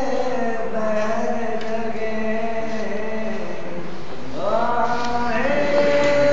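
A man singing long drawn-out notes with slow slides in pitch, gliding up into a higher held note about four and a half seconds in.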